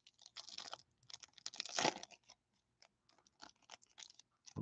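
Foil wrapper of a Bowman Chrome card pack crinkling and crackling as it is peeled open, in quick bursts that are loudest in the first two seconds. Lighter crinkles and small clicks follow as the cards are slid out.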